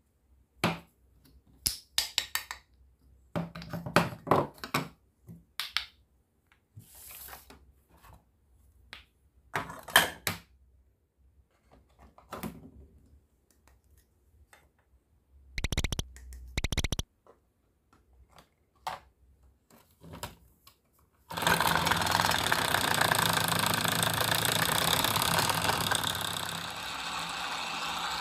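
Plastic toy pieces clicking and tapping, then a toy electric stand mixer's small motor starts and runs steadily for the last several seconds, whirring as its beaters spin in a bowl of liquid; the whir drops a little in loudness near the end.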